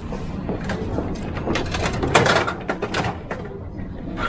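Capsule-toy (gashapon) vending machine being worked: the dial is cranked with a run of ratcheting clicks and clunks, loudest about halfway in, as the prize capsule drops into the outlet.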